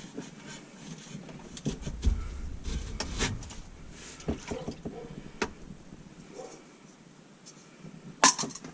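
Scattered clicks and knocks of old sink drain parts being handled and worked loose, busiest a few seconds in, with one sharp knock near the end.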